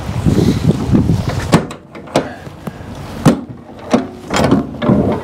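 Lorry trailer rear doors being unlatched and opened: a rough rattling scrape, then a string of about six sharp metal clunks and knocks from the handles and door locking gear.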